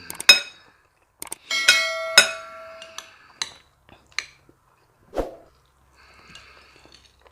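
Cutlery clinking and tapping against plates during a meal, with a ringing clink about one and a half to two seconds in and scattered lighter clicks after.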